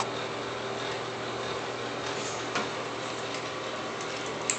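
Steady low hum and hiss of background room noise, with a faint click about two and a half seconds in and another near the end.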